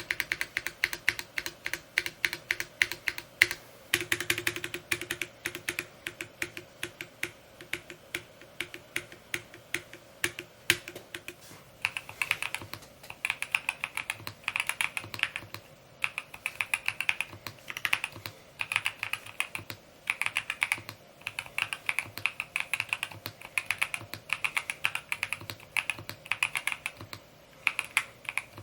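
Mode Encore 2 mechanical keyboard being typed on: a fast, continuous stream of keystroke clacks. About twelve seconds in the sound changes, turning brighter and coming in bursts of keystrokes with short pauses between them.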